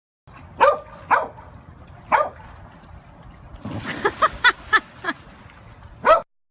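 A dog barking in short, sharp barks: three spaced barks, then a quick run of about five, then one loud final bark.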